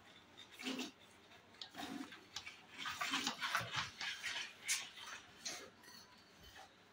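Cow being hand-milked into a steel pail: jets of milk squirting into the bucket, about two or three squirts a second in an uneven rhythm, strongest in the middle.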